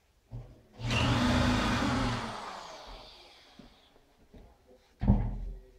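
A handheld electric power tool's motor run in a short burst of about a second and a half, then released and spinning down, fading over about two seconds. A single loud thump near the end.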